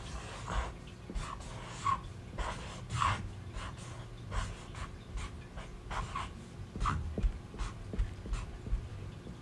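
Felt-tip marker drawing on paper: a string of short, irregular scratchy strokes with a few light squeaks and dull knocks of the hand on the paper.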